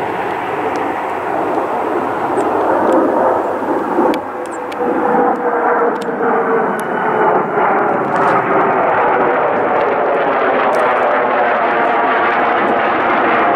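Two F-35 fighter jets passing low overhead in formation under power, climbing out of a go-around with a loud, continuous jet roar. The roar's pitch falls slowly in the second half as they pass and draw away.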